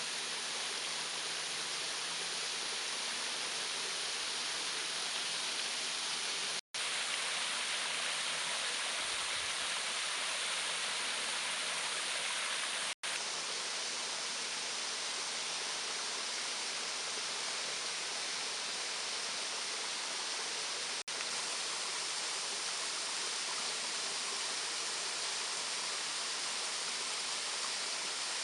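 Waterfall: steady rushing of falling water, cutting out sharply for an instant twice, about a quarter and about halfway through.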